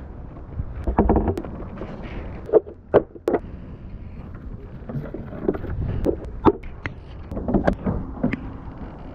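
Water splashing and sloshing in uneven bursts close to a GoPro's microphone, with a few sharp knocks about three seconds in and again near six and a half seconds.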